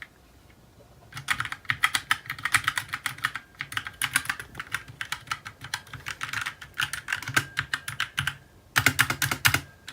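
Keys of a small DIERYA mechanical keyboard being pressed in quick succession, a fast run of keystroke clicks. It starts about a second in, stops briefly near the end, then comes back in a short final burst.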